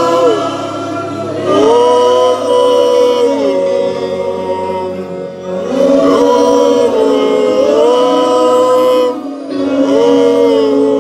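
Voices singing a slow gospel worship song of praise: long held notes that slide up or down into the next pitch, over a steady low note.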